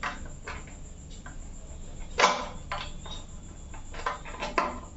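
Scattered clicks and light taps of an insulated electrical wire being handled and pushed into the neutral link of a plastic MCB distribution box, with one sharper click about two seconds in.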